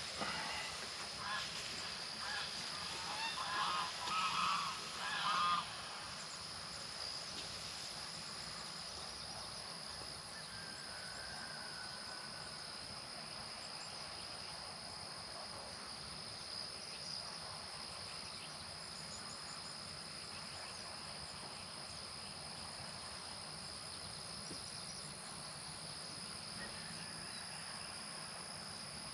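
Geese honking in a short flurry of loud calls over the first six seconds or so, over a steady high chirring of insects that carries on throughout.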